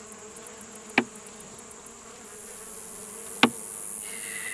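Honeybees buzzing steadily around an open hive, with two sharp cracks, about a second in and again near the end, as a tight frame is pried loose.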